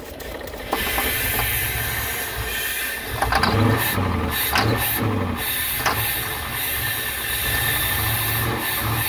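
Aerosol starting fluid (ether) hissing as it is sprayed into a pickup's open intake tube, beginning just under a second in. From about three seconds in the engine turns over unevenly beneath the hiss, being cranked on ether to get it to fire.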